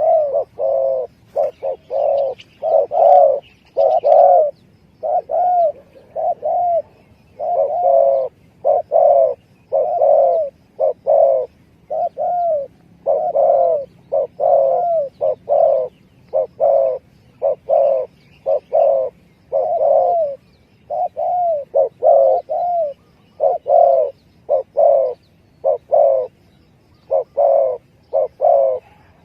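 Spotted dove (tekukur) cooing on and on in a steady run of short, rounded coos, about one and a half a second in small groups, as a lure call for the species. Faint higher bird chirps sound in the first few seconds.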